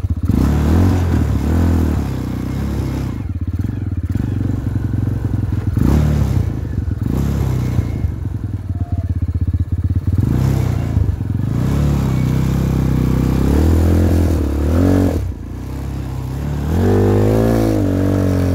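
Jinling 250cc ATV's single-cylinder four-stroke engine running under load off-road, revs rising and falling over rough ground. It dips briefly a few times and revs up hard near the end.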